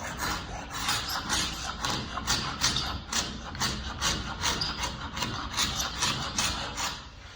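Hand scraper with a freshly sharpened carbon-steel edge drawn in quick, even strokes over old oak stair treads, about three to four strokes a second, scraping off a brittle varnish and primer coat. The strokes die away near the end.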